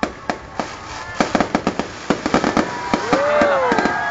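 Aerial fireworks bursting in a rapid, uneven series of sharp bangs and crackles.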